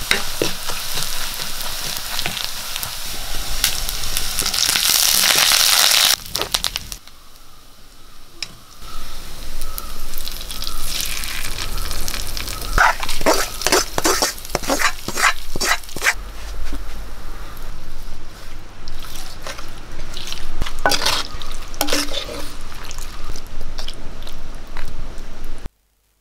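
Sliced shallots and dried red chillies frying in hot oil in an iron kadai: a steady sizzle that grows louder about four seconds in and cuts off about six seconds in. After a short quieter spell, a metal ladle scraping and clinking irregularly against a pot as the curry is stirred and served.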